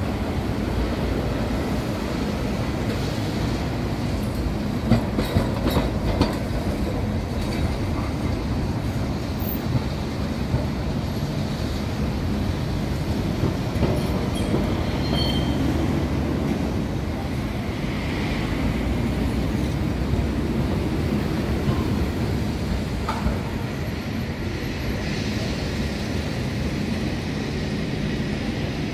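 Lisbon heritage tram rolling along street rails: a steady rumble with a few sharp clacks about five seconds in and a short high wheel squeal about halfway through.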